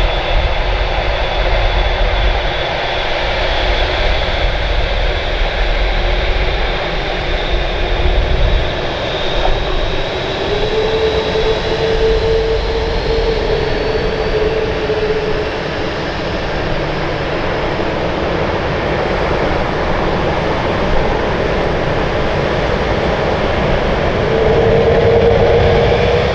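Emirates Airbus A380 jet airliner, its four jet engines giving a loud, steady roar with a faint high whine, and a mid-pitched tone that swells in twice, getting a little louder near the end.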